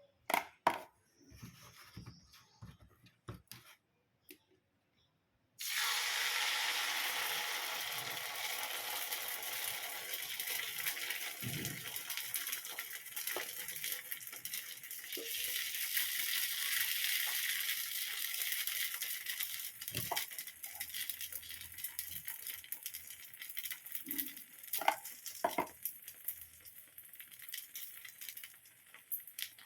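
A few light clicks and knocks. Then, about five seconds in, a sudden loud sizzle starts as dosa batter fries on the hot surface of an electric kettle. The sizzle slowly eases, with a few utensil knocks over it.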